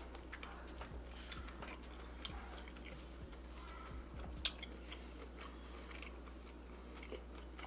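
A person chewing food close to the microphone: faint, irregular mouth clicks, with one sharper click a little past halfway.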